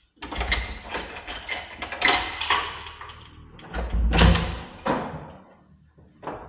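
Handling noise from a camera being carried: a run of knocks, rubbing and low rumbles, loudest about four seconds in. Near the end comes a short click as a wooden door is opened.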